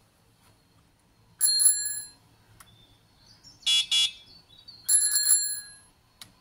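Handlebar bell on an electric bike rung twice in quick strokes, each ring lasting about half a second, about one and a half seconds in and again about five seconds in. Between the rings come two short buzzy electronic beeps.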